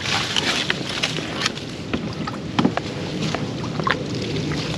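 Kayak being worked back out of overhanging tree branches: irregular clicks, knocks and brushing of twigs and leaves against the boat over a light water noise.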